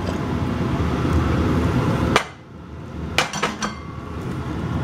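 A steady rushing noise, then a sharp click about two seconds in, followed a second later by a few quick metallic clinks as an aluminium lid is lifted off a skillet, knocking against the rim.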